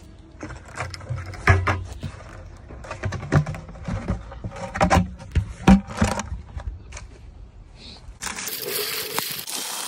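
Plastic bucket waterer being handled and turned over, giving irregular knocks and scrapes. About eight seconds in, a steady hiss of water from a garden hose starts pouring into it.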